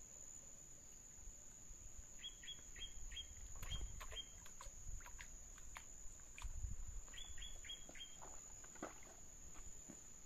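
A small songbird, locally called piú, singing two quick runs of short repeated high notes: about six a couple of seconds in, then four more a few seconds later.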